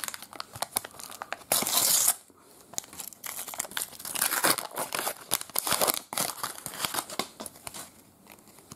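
A thin Panini sticker packet torn open by hand: a sharp rip about one and a half seconds in, then a stretch of crinkling and crackling wrapper, and softer rustling near the end as the stickers and card are handled.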